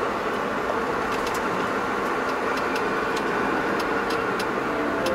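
Steady road and engine noise of a moving car, heard from inside the cabin, with about ten light clicks scattered at irregular intervals.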